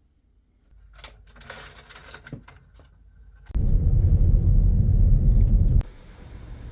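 Faint scattered clicks and rustling, then about three and a half seconds in a loud low rumble that starts suddenly and cuts off about two seconds later.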